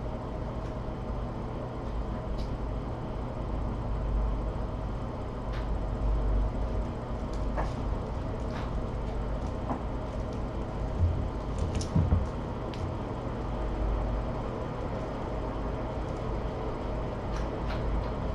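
Scattered light thumps and clicks as a kitten climbs and jumps about a carpeted cat tree, over a steady low room hum.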